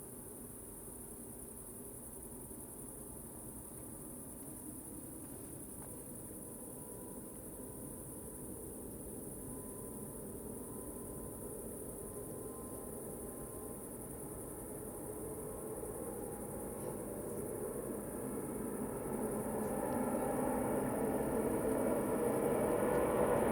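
Crickets chirping in a steady high band while the jet engines of a Boeing 777-300ER, GE90s, grow steadily louder as the airliner powers up for takeoff, a faint whine coming in about halfway.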